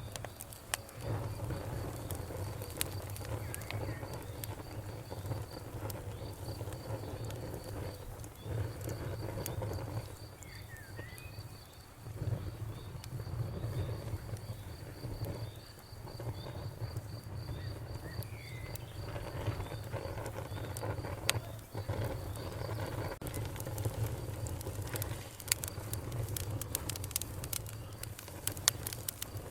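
Campfire crackling with sharp pops over a low steady rumble. The pops come thicker near the end. An insect trills in rapid even pulses and stops about two-thirds of the way through, and a bird chirps briefly a couple of times.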